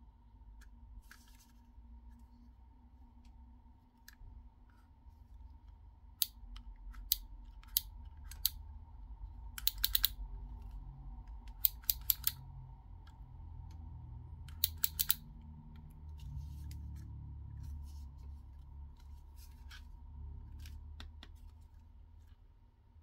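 Things being handled, with a low rubbing rumble and sharp clicks, some single and some in quick clusters of three or four, through the middle of the stretch.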